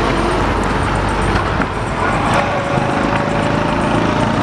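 Busy town road traffic close by: motorcycle and truck engines running, with a steady engine tone coming in about two seconds in.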